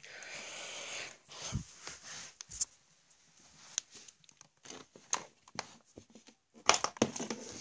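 Packing paper being torn off a mini fridge and crumpled, then scattered light handling clicks and knocks, with a cluster of sharp clicks near the end.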